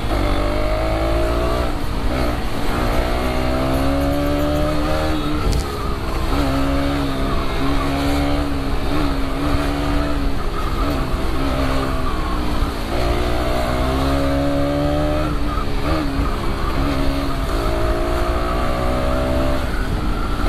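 KTM Duke 200 BS6's single-cylinder engine, heard from the rider's seat under way, with holes drilled in the exhaust to give it the deeper, bassier note of the older BS4 model. Its pitch climbs under throttle several times and drops back between climbs, with a steadier cruising stretch in the middle.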